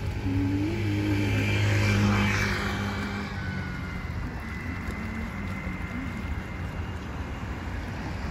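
A motor vehicle's engine passing by, a steady low hum that grows loudest about two seconds in and then slowly fades.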